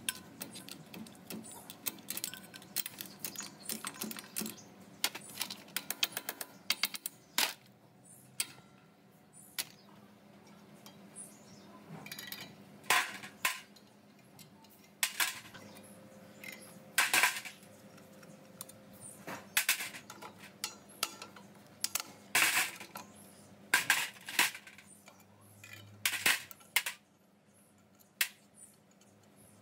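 Metal tools and parts clinking and knocking against each other at an irregular pace, with runs of quick light taps and louder single clanks.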